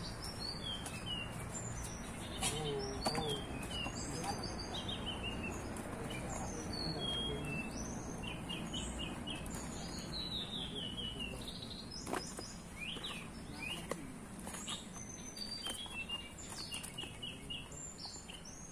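Songbirds chirping and calling in quick, overlapping trills and short high notes, with several different call types running throughout.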